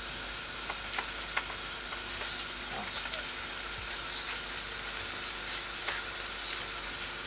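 Steady chirring of crickets over a background hiss, with a few faint clicks.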